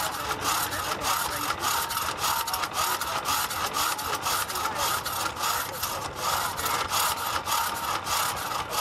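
A flywheel-driven drag saw's long crosscut blade working back and forth through a log, making a steady, rhythmic rasp with each stroke.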